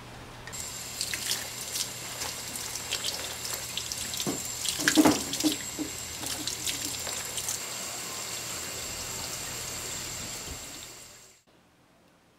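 Water running from an outdoor tap and splashing onto a concrete floor and into a bamboo basket of freshly picked greens as they are rinsed, with louder splashes about five seconds in. It cuts off suddenly about eleven seconds in.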